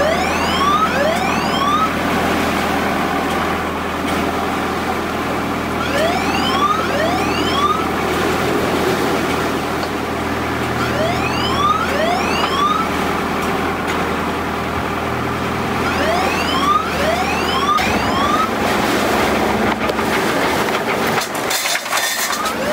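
Storm wind noise aboard a sailing yacht at anchor, with groups of short rising whistles recurring every five seconds or so. A low steady hum underneath stops about three-quarters of the way through.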